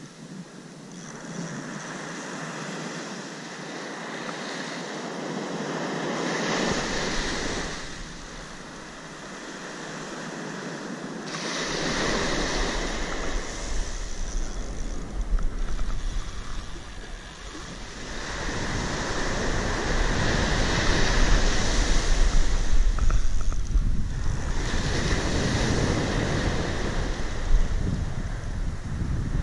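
Surf breaking on a beach, the noise swelling and fading with each wave every several seconds. From a little under halfway in, wind also buffets the microphone with a low rumble.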